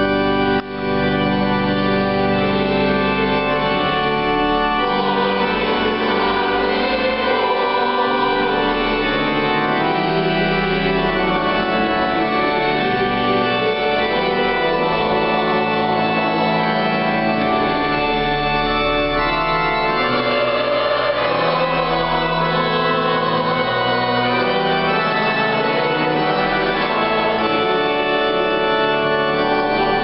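Organ playing slow, sustained chords, with a brief dip in loudness about half a second in.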